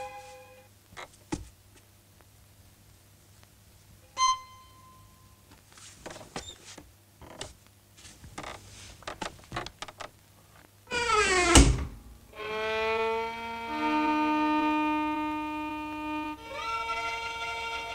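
Sparse film score with bowed-string notes and scattered soft taps. About eleven and a half seconds in, a falling glide ends in a heavy thud. After it come held string notes that step from one pitch to another.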